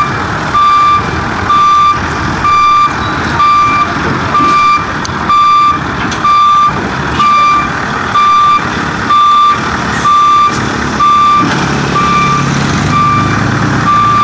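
Reversing alarm on a Mercedes-Benz Actros tractor unit, one steady high beep about once a second as the truck backs up. Under it the truck's diesel engine runs, and its low note grows stronger near the end.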